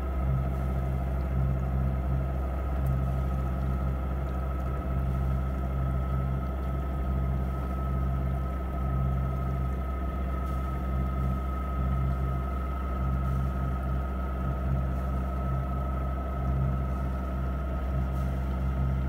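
Sailboat's engine running steadily under way: a constant low drone with a faint, steady high whine above it.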